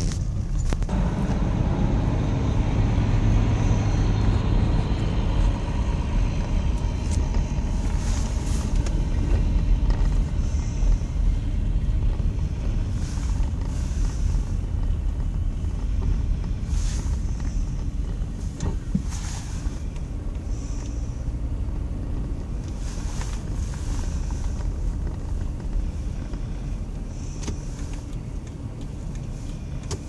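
Road and engine noise inside a car's cabin moving slowly, at about 10 mph, on an icy highway: a steady low rumble with short hissing swishes now and then.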